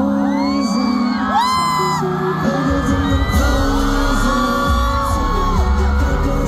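A live pop concert: the song plays loud over the stadium sound system while many fans scream and cheer over it.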